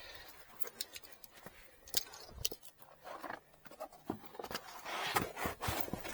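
Plastic kick plate trim panel being fitted back into a car's footwell: scattered light clicks and taps, with a stretch of scraping about five seconds in, as the panel is pressed on and its clips seat.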